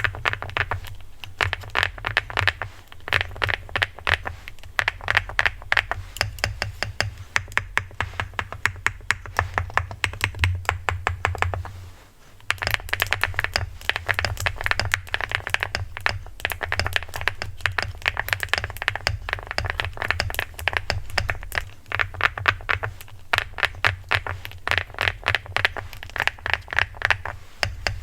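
Fast, continuous typing on a HI75 mechanical keyboard: a dense stream of thocky key strikes that pauses briefly about twelve seconds in.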